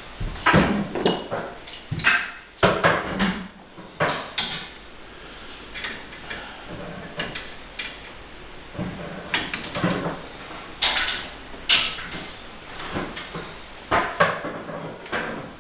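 Hands and tools working on copper supply pipes and fittings under a pedestal basin: irregular knocks, clanks and scrapes, a dozen or so spread unevenly.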